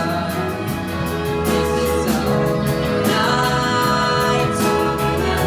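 A band and orchestra playing a song together, with sung vocals over held chords and a steady beat.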